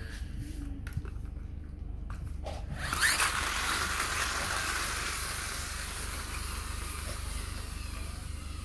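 A wheeled plastic toy robot rolling across a concrete floor: a rushing scrape starts suddenly about three seconds in and slowly fades.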